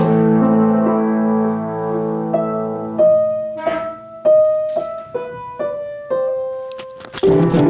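Piano music: a held chord that slowly fades, then a slow melody of single struck notes. Shortly before the end a burst of noise cuts in over it.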